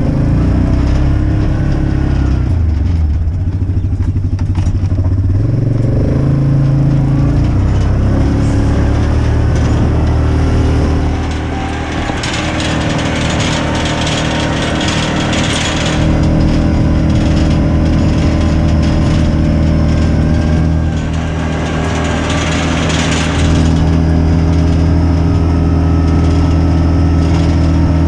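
A vehicle engine running steadily and loudly, its pitch shifting up and down several times as the speed changes.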